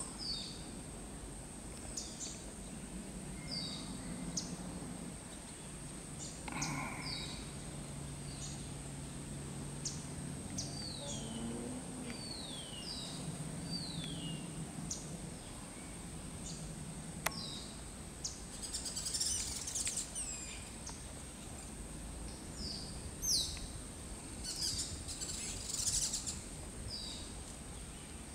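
Small birds chirping: short high notes that fall in pitch, one every second or two, with quicker twittering about two-thirds of the way through and again near the end, over a steady thin high whine.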